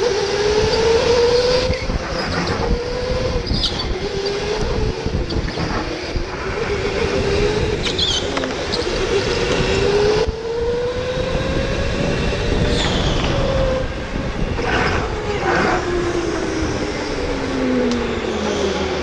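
Storm electric go-kart's motor whining, its pitch rising and falling as the kart speeds up and slows through the corners, over steady road and wind noise. A few brief high squeals come through along the way.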